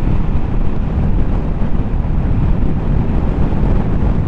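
Steady wind buffeting over the microphone of a moving motorcycle, with the engine and road noise underneath.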